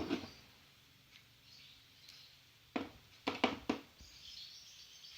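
A handful of sharp clicks and taps in quick succession, about three seconds in, from handling the UTP cable wires and the crimping tool.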